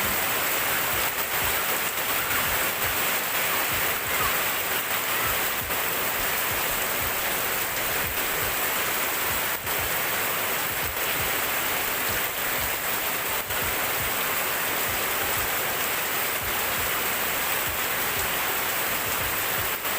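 Steady rain pouring down, an even hiss of falling water with scattered drops ticking.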